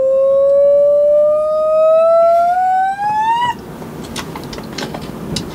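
A person's voice holding one long 'ooh' that slides slowly and smoothly upward in pitch, then breaks off sharply about three and a half seconds in. Light scattered clicks follow.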